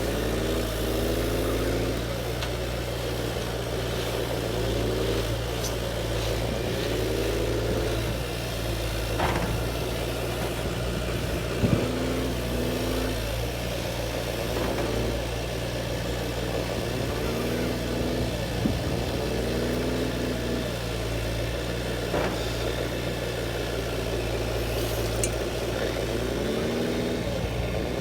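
A motor running steadily with a low hum, overlaid by a wavering, sweeping tone that comes and goes every few seconds, and a few brief sharp clicks.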